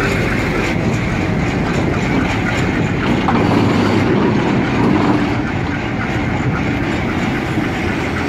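Train of new Uganda Railways 98 class locomotives moving off and rolling past close by, its steel wheels running on the rails. The noise is loud and steady, strongest low down.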